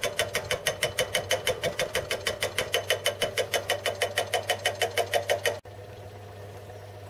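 A small metal lathe turning an out-of-balance aluminium casting, with a rhythmic clatter about seven times a second, once per turn of the lopsided part, over a steady motor hum. The clatter stops abruptly near the end, leaving a quieter, steady running hum.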